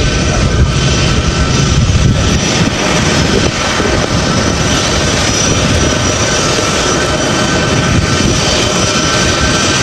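Aircraft engines running steadily: a loud, continuous noise with a steady high whine over it.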